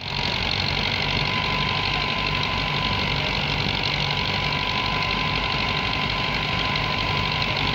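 Belarus 510 tractor's diesel engine running steadily under load as it drives a wheat thresher, with the thresher's continuous hissing rush of grain and straw and a thin steady whine over the engine.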